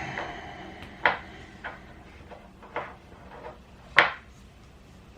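A few light clicks and knocks of small parts and tools being handled on a workbench, the sharpest about four seconds in.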